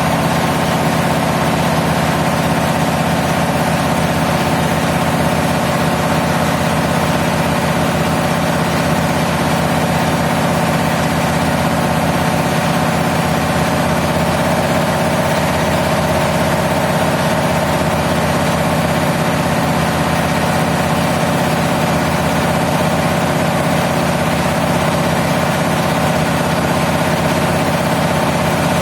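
Diesel engine running at a steady speed, a constant loud drone with a steady hum and no change in pitch or load.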